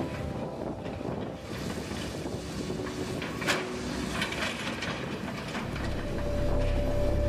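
Hitachi excavator running while it works a demolition grapple against a masonry wall, with one sharp knock about three and a half seconds in. Near the end a train starts to rumble in, a low rumble with a steady whine over it.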